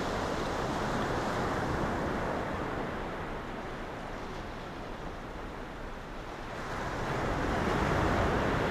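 Surf washing onto a sandy beach, mixed with wind on the microphone. It eases a little midway and swells louder again near the end.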